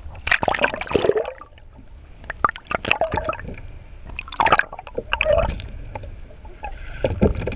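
Water splashing irregularly as a hooked bonito thrashes at the surface beside the boat while it is reeled in; the biggest splashing comes about a second in, with smaller splashes after.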